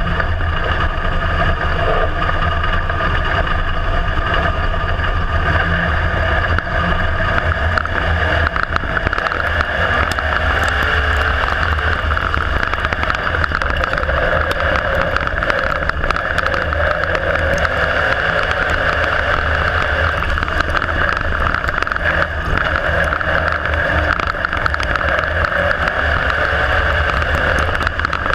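IMCA Modified dirt-track race car's V8 engine running steadily under load, heard from inside the open cockpit.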